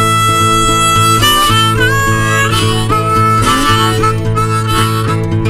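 Blues band instrumental break: a harmonica plays held lead notes, sliding up into some of them, over a steady guitar backing.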